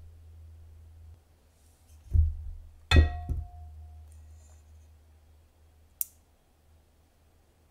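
Egg separating at a glass mixing bowl: a dull knock, then a sharp strike on the glass that rings with a clear tone for about a second, a softer knock right after, and a short sharp click near the end.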